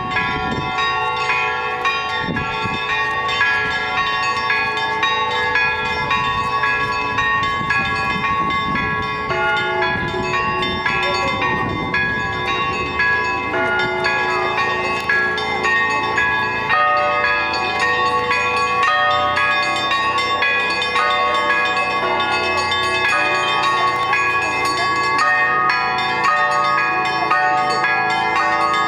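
Russian Orthodox monastery bells rung by a single bell ringer, the clappers swung against stationary bells: many bells of different pitches struck in a rapid, continuous peal, their ringing tones overlapping without a break.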